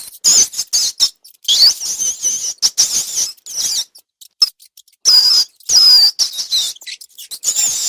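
Rats squeaking: a rapid, irregular series of shrill squeaks that waver up and down in pitch, broken by short pauses.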